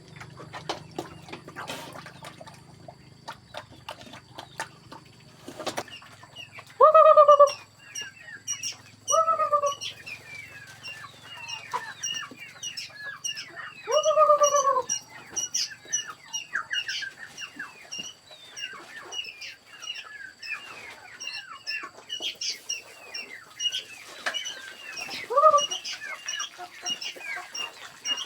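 Chickens calling and clucking: three loud drawn-out calls about seven, nine and fourteen seconds in and a shorter one near the end, over a steady chatter of many short high chirps. The first few seconds hold scattered clicks and knocks.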